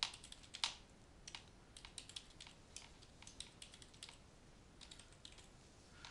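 Typing on a computer keyboard: a run of faint, irregular key clicks, the strongest right at the start and about two-thirds of a second in.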